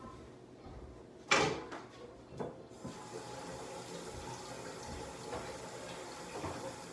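A sharp knock and then a lighter one, followed by a water tap turned on and running steadily into a sink.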